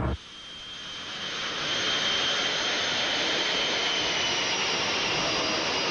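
Carrier jet's engine running at high power on the catapult before launch: a steady high whine over a loud rush of jet noise, growing louder over the first two seconds and then holding.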